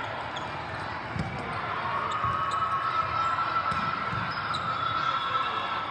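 Volleyballs bouncing on a hard court floor in a large, echoing hall, several separate dull thumps over a steady background din of the hall.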